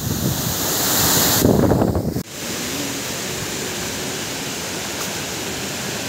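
Waterfall rushing. For the first two seconds wind buffets the microphone over the water, then the sound cuts abruptly to a steady, even rush of falling water.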